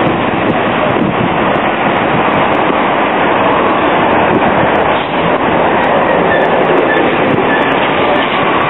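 Loud, steady street traffic noise as trolleybuses and cars pass close by, with little change except a brief dip about five seconds in.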